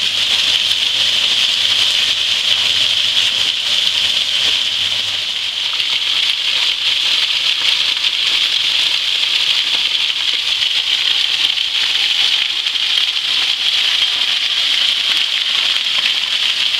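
Wet-weather waterfall spilling over the lip of a rock overhang and splashing onto the rocks below: a steady, loud rush of falling water.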